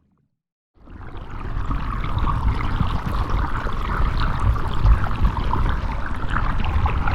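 Sound effect of continuous rushing water with a low rumble beneath, fading in after a second of silence and then holding steady.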